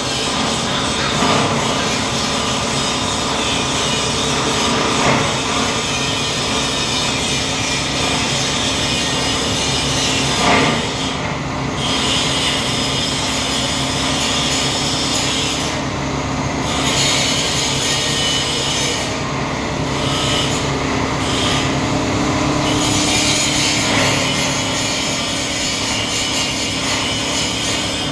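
Plastic granulator grinding polypropylene (PP) film: a steady, loud machine noise with a constant hum and rasping from the cutting chamber, with a few short cracks along the way.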